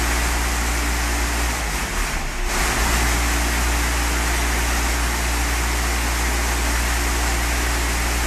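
Baler machinery running steadily: a loud, constant mechanical hum over a broad hiss, easing briefly about two seconds in.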